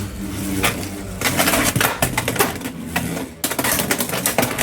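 Beyblade X tops Whale Wave and Hells Chain spinning and clashing in a plastic stadium: a fast, irregular rattle of sharp clicks and knocks. It thickens about a second in and briefly drops away a little after three seconds.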